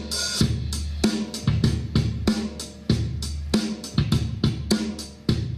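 Intense drum-kit percussion music played loudly through a two-way loudspeaker cabinet: a fast beat of kick, snare, hi-hat and cymbal hits, about four strokes a second, over a steady deep bass that drives the bass speaker cone into visible vibration.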